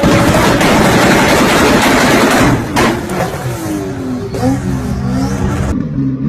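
A sports car's engine and exhaust revving hard. A loud rush of exhaust noise fills the first couple of seconds, then the engine note rises and falls with the revs, and the sound cuts off abruptly near the end.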